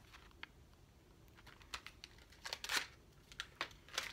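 Faint crinkling and crackling of a plastic candy wrapper being handled and torn open, louder for a moment about two and a half seconds in.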